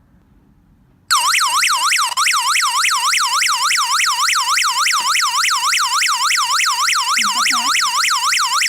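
Electronic alarm siren of a JCHENG home security alarm kit going off about a second in, a loud rapid warble that dips and rises in pitch several times a second, sounding while the system is armed during a function test.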